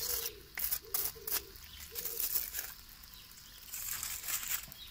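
Chopped onion frying in oil in a pan, with a faint sizzle and irregular sharp crackles and pops, most of them in the first two seconds.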